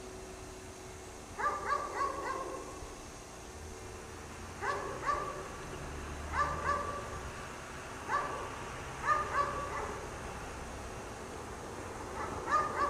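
A dog barking in short bursts of two or three sharp barks, a burst every one to three seconds.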